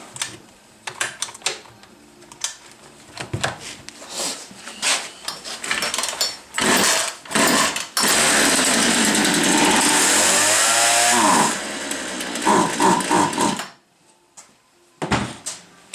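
Partner 351 two-stroke chainsaw being pull-started after its carburetor adapter was replaced to cure an air leak: a string of starter-cord pulls, then the engine catches about eight seconds in and runs loud with its speed rising and falling, drops lower and cuts out a couple of seconds later.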